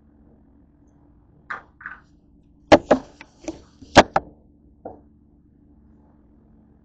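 A short run of hard knocks and clatters on a kitchen counter as a saucepan and the camera are handled. It starts with a couple of soft rustles, then comes a cluster of sharp knocks in under two seconds, the loudest two about a second apart, and one last lighter knock.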